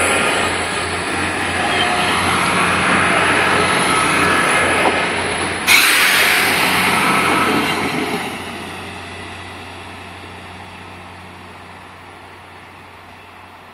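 Two coupled SA133 diesel railbuses passing close by: a steady low engine hum under wheel and rail noise. There is a sudden loud burst of noise about halfway through as the second unit goes by. The sound then fades steadily as the train draws away.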